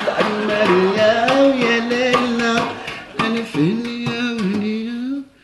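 A man sings a wavering folk-style melody while beating a round tray with his hands like a frame drum, in short rhythmic strikes. The song breaks off suddenly near the end.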